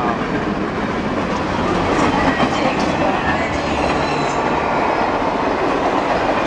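Canadian Pacific Holiday Train's freight cars passing close by, with a steady, loud noise of steel wheels running over the rails.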